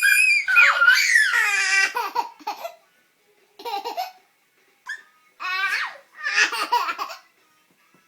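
A baby laughing hard. A long, high-pitched laugh over the first two and a half seconds is followed by four shorter bursts of laughter with silent pauses between.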